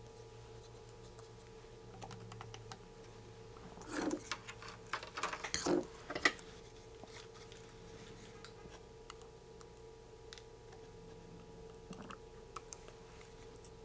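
Faint small clicks and rustling from handling electronic kit parts (resistors and the board) on a workbench, busiest between about four and six seconds in, over a steady low hum.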